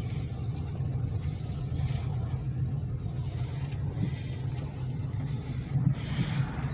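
Steady low rumble of a car's engine and tyre noise heard from inside the cabin while driving.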